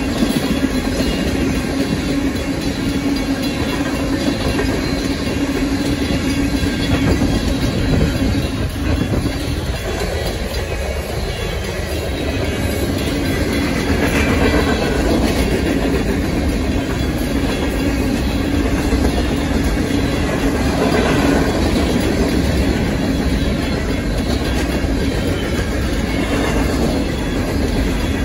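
Freight train cars rolling past a grade crossing: steel wheels clicking over the rail joints over a continuous rumble.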